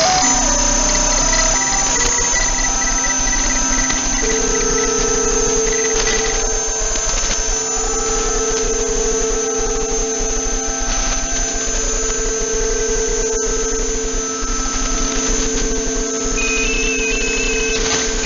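Shortwave receiver audio tuned to 14.075 MHz in the 20-metre amateur band: a steady hiss with several overlapping droning tones from on-air data signals. Near the end a higher tone hops between a few pitches.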